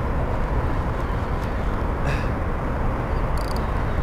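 Steady low rumble of background city traffic, with no distinct event standing out.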